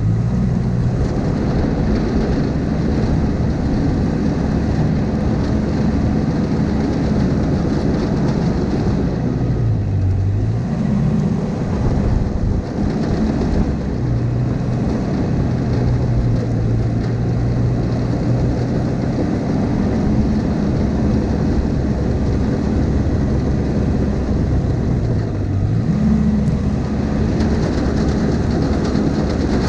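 Diesel engine of a tracked Caterpillar earthmover running steadily. Its pitch dips briefly and recovers at the start, about ten seconds in and again near the end.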